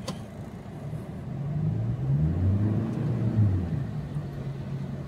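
Toyota Hilux 4x4 automatic pickup's engine revving as the truck accelerates away from a standstill in mud, in 4x4 high with traction control off, heard from inside the cab. The revs climb about a second in, are loudest around two to three and a half seconds, then settle to a steady pull as the truck gets out of the mud without trouble.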